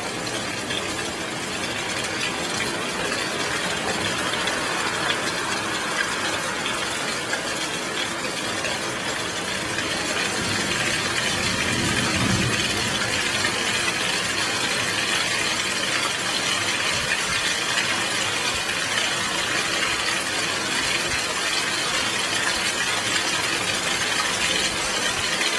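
Heavy rain falling steadily, a dense hiss of drops. A low rumble of thunder swells and fades about halfway through.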